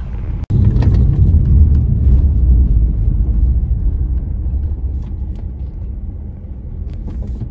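Low road rumble of a vehicle driving, heard from inside the cab, starting abruptly about half a second in and growing gradually quieter.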